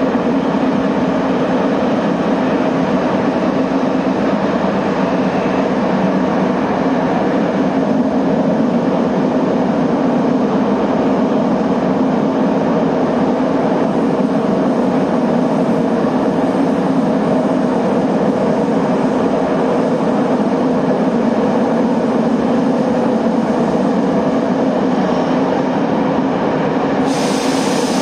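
Saitama Railway subway train running through the tunnel, heard from inside the front car: a steady rumble of wheels and traction motors. A short hiss comes in near the end.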